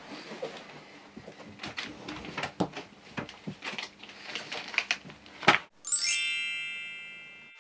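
Room door opening and a padded mailing envelope being handled, with scattered soft knocks and paper rustles. About six seconds in there is a sharp click, then a bright chime of several tones that rings and fades over about a second and a half.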